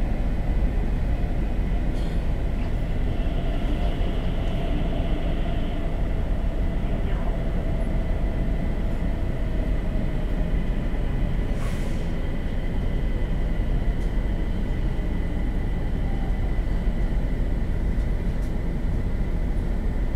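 Interior ride noise of a Stockholm metro train slowing as it pulls into a station: a steady rumble with a faint whine that slowly falls in pitch. A single sharp click comes a little past halfway.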